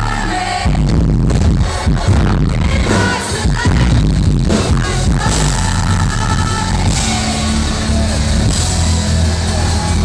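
Loud live electronic dance music from a festival stage, with heavy steady bass and singing, recorded with distorted, overloaded sound.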